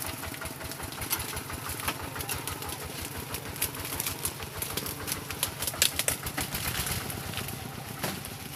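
Walking tractor's single-cylinder diesel engine running at a steady low speed as the tractor pulls its trailer past, with sharp clicks and rattles over the engine beat. It fades a little near the end.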